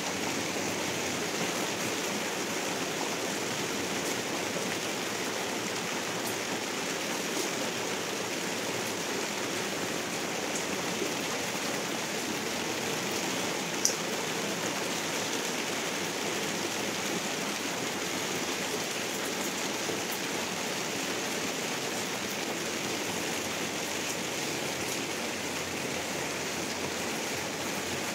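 Heavy rain falling steadily, an even rushing hiss that does not let up, with a single sharp click about halfway through.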